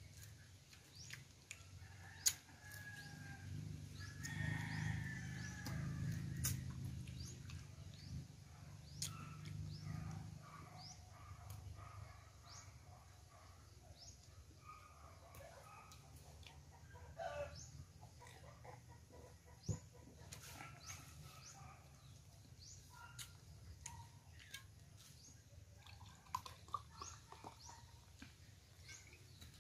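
Chickens clucking and birds chirping faintly, with scattered clicks and cracks as cooked blue crab shells are broken and eaten by hand. A few seconds in, a low rumble rises and fades over several seconds.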